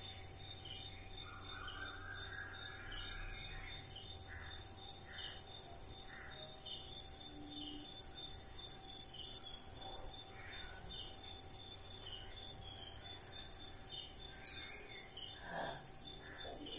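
Insects trilling in a steady, high, finely pulsing drone, with a second repeating chirp about twice a second. A few short lower calls and a brief click come near the end.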